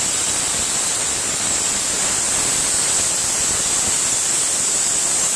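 Compressed-air blow gun on an air hose blowing a loud, steady hiss to dust off a riding mower's engine.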